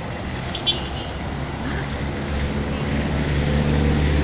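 Road traffic with a motor vehicle's engine running close by, its low hum growing louder over the second half. A brief sharp click comes about two-thirds of a second in.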